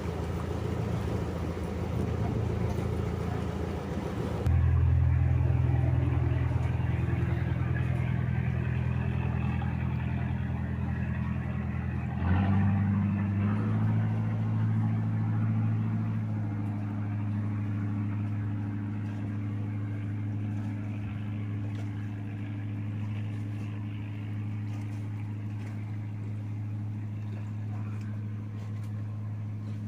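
An engine running with a steady low hum, its tone and loudness changing abruptly twice, about four seconds in and about twelve seconds in.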